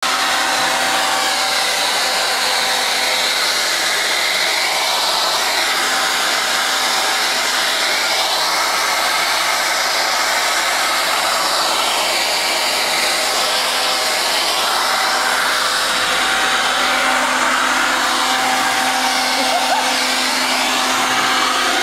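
Handheld leaf blower running steadily at full power, a loud rushing air blast over a motor whine, blowing snow off parked cars; the rush shifts in tone every few seconds as the nozzle is swept about.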